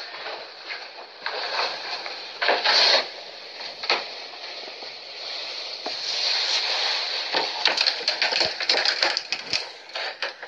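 Footsteps crunching over debris, with irregular snaps and cracks that come thicker in the second half, over a steady hiss.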